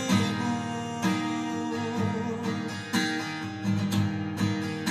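Instrumental passage of a worship song: strummed acoustic guitar chords over sustained backing music, with no singing.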